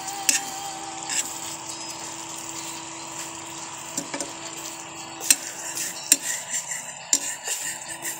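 A metal utensil stirring in a cooking pan, knocking sharply against it several times at uneven intervals, over a steady sizzle of food cooking.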